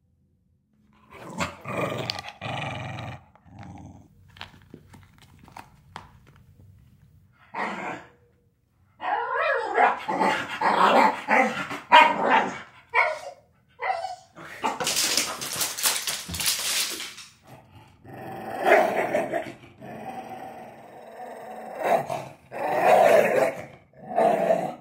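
A dog growling and barking in play, in repeated bursts with short pauses between.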